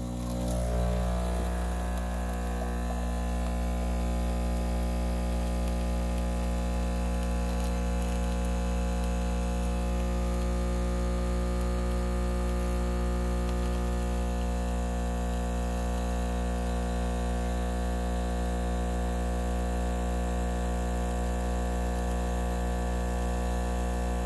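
Espresso machine's pump humming steadily while pulling a shot, its tone settling about a second in as pressure builds.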